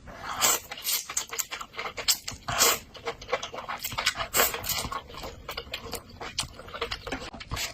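Close-miked eating sounds from a bowl of malatang: irregular chewing and mouth clicks, with a few short slurps.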